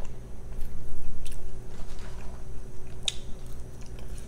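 Close-miked chewing of food, with a few sharp wet mouth clicks, over a faint steady low hum.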